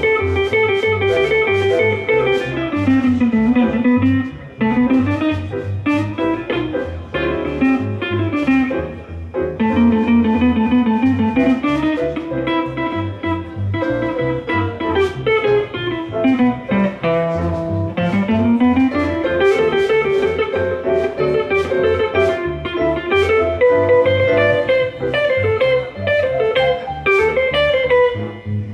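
Small jazz band playing a swing tune live, a guitar carrying the melody over bass guitar, keyboard and drums with cymbal ticks.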